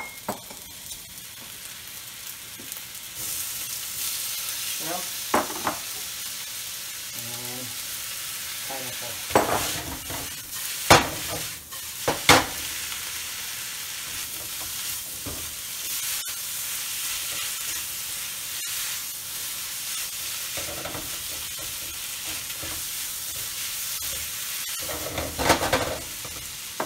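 Fried rice sizzling in a hot wok while a spatula stirs and turns it. Several sharp knocks and scrapes of the spatula against the wok come about ten seconds in and again near the end.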